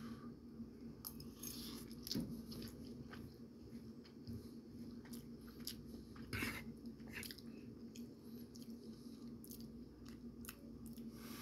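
A man chewing mouthfuls of fried rice: irregular small mouth clicks and smacks, over a steady low hum.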